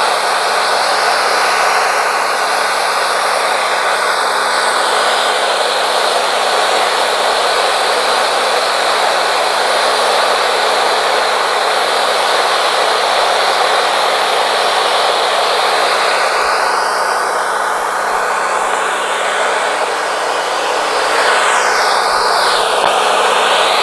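Wood-Mizer LT40 Wide band sawmill running, its band blade sawing lengthwise through a yellow pine cant with a steady, loud whir. Near the end a whine sweeps down in pitch and back up again.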